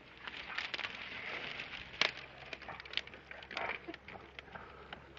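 Dry brush and twigs crackling and snapping as someone pushes through them on foot: a run of irregular small clicks, with one sharper snap about two seconds in.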